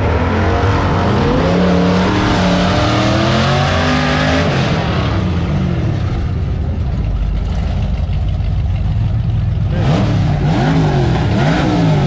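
Loud drag-car engines with a steady low rumble throughout. An engine revs up and down over the first few seconds, and two quick throttle blips come near the end.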